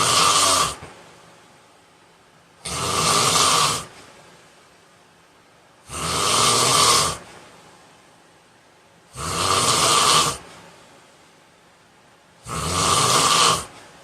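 A man snoring in his sleep: loud, regular snores about every three seconds, each a little over a second long, with quiet gaps between.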